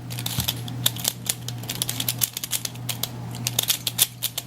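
Plastic Pyraminx puzzle being turned quickly by hand, its pieces giving rapid, irregular clicks as each turn locks into place, which the solver puts down to magnets inside. A low steady hum runs underneath.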